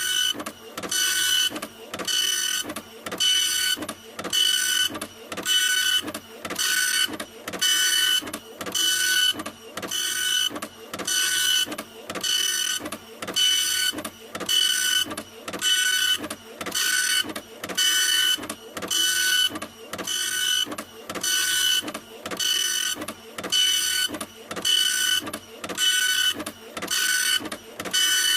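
Printer running continuously, with an even, rhythmic whirr of passes a little more than once a second, each pass carrying a high whine.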